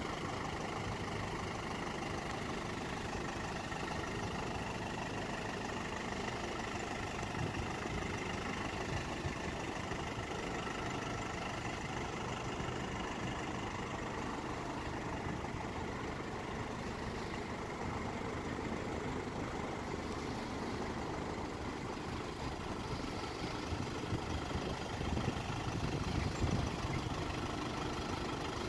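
1988 Isuzu Bighorn's 2.8-litre 4JB1-T four-cylinder turbo-diesel idling steadily, a little louder near the end.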